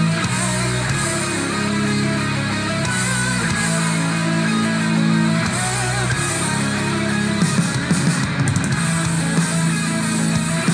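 Heavy metal with distorted electric guitars and a heavy low end, played loud through a Yamada BoomBass portable speaker for a sound test.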